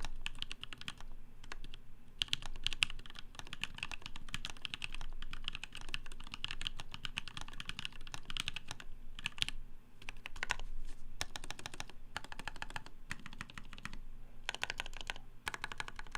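Typing on a CannonKeys Malicious Ergo mechanical keyboard with Kailh cream switches lubed with Krytox 205g0, on an FR4 plate: a fast, steady run of keystroke clicks with a few short pauses.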